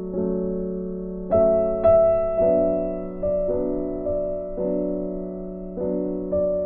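Background music: a slow melody, a new note struck every half second or so over held chords.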